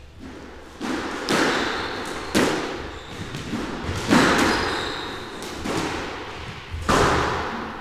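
Squash rally: a squash ball struck by rackets and hitting the court walls, about five or six sharp impacts spaced a second or so apart, each echoing in the enclosed court.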